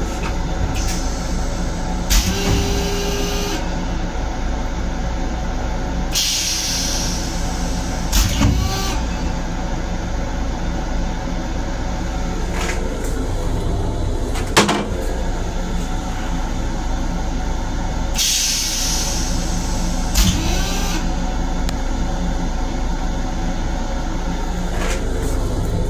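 Running noise of a Long Island Rail Road M7 electric railcar heard from inside its restroom: a steady low rumble, with a few sharp knocks and three hisses of air, each lasting one to two seconds.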